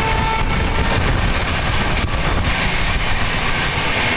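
Passenger express train running at speed, heard from an open coach door: steady wheel-on-rail rumble with wind buffeting the microphone.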